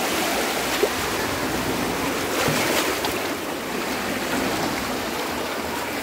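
Steady rush of moving water, waves or flowing water washing continuously.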